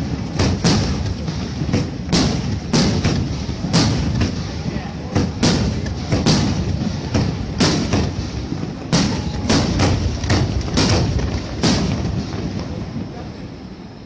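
Fireworks exploding in quick, irregular succession, about two bangs a second, each trailed by a low rumbling echo; the bangs stop and the rumble fades near the end.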